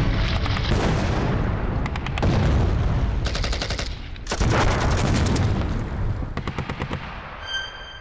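Battle sound effects: rapid bursts of automatic gunfire and explosions layered over a heavy rumble, thinning out and fading near the end, where a high steady tone comes in.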